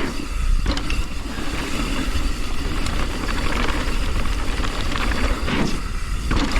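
Riding noise from a mountain bike descending a dirt jump trail: wind buffeting the microphone in a heavy low rumble, tyres rolling over dirt, and short rattles and knocks from the bike over bumps.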